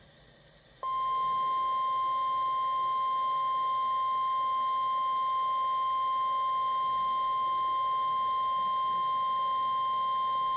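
Weather radio alert tone: a single steady tone of about 1050 Hz. It starts about a second in and holds unbroken for roughly ten seconds, signalling that a severe thunderstorm warning follows.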